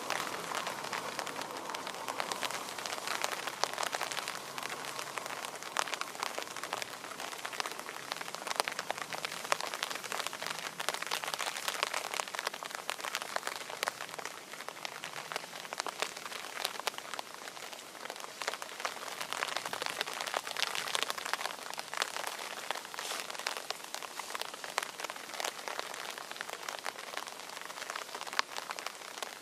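Rain falling steadily, a dense patter of drops.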